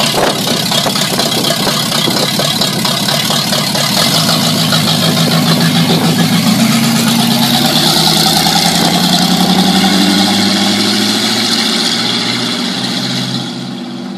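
Engine of a hot-rodded 1949 Chevrolet pickup running loudly as the truck drives past, its pitch rising as it accelerates in the middle, then fading as it moves away near the end.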